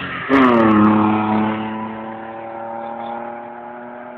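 Car engine at high revs as the car speeds by. About a third of a second in there is a sudden loud surge with a brief crackle, then the engine note drops in pitch, holds steady and fades away.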